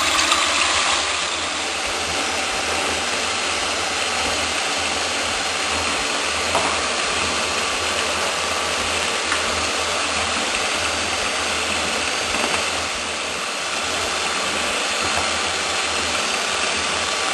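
Ufesa stand mixer running steadily, its twin beaters whipping egg whites into a foamy meringue.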